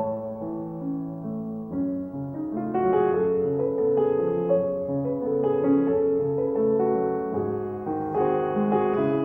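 Gentle background piano music: slow, held notes and chords that grow fuller about three seconds in.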